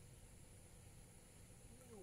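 Near silence: a faint steady low hum and hiss, with a brief falling voice sound near the end.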